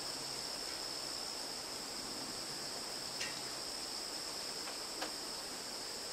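Insects trilling steadily in two high-pitched bands over a faint even hiss, with two brief faint sounds about three and five seconds in.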